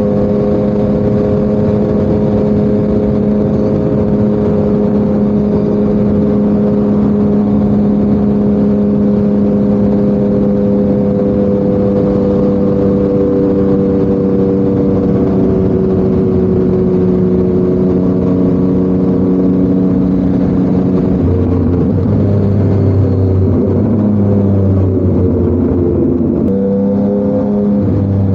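Yamaha MT-09's crossplane three-cylinder engine breathing through an SC-Project CRT exhaust, running at steady revs whose pitch sinks slowly. About two-thirds of the way through, the revs drop to a lower, uneven note with shifting pitches.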